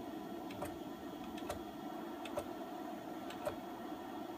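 Sharp clicks at irregular intervals, some in quick pairs, over a steady low hum, as the X2 CNC mill's Z axis is jogged in single-thousandth steps from the computer keyboard during a backlash test.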